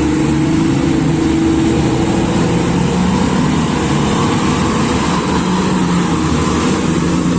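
Komatsu HD785 mining haul truck's diesel engine running steadily as the truck drives past, a deep, even drone that holds its pitch throughout.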